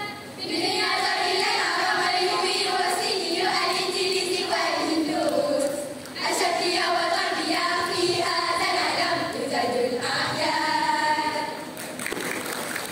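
A choir of schoolgirls singing together in unison under a conductor, in held, sliding phrases with a brief break about halfway through. The singing stops about a second before the end.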